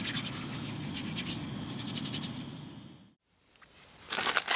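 Primus Mimer gas stove burner running with a steady low rush, with light rustling over it. It fades out about three seconds in, and after a brief silence plastic packaging starts crinkling near the end.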